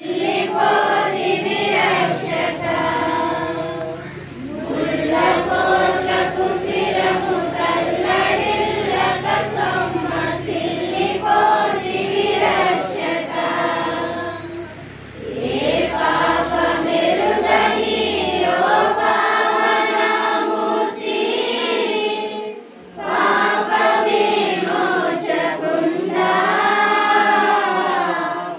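A congregation singing a hymn together in long sung phrases, with short breaks about four, fifteen and twenty-three seconds in. A low steady drone sits under the voices until about nineteen seconds in.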